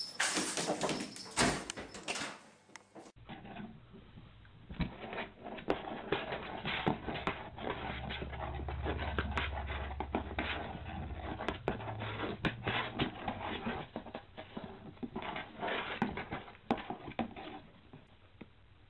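A cat scrambling on a pop-up fabric laundry hamper, with a few loud rustling thumps. Then a cat scratching and rustling about inside a cardboard box: a busy run of scratchy clicks, with a low hum for a few seconds in the middle.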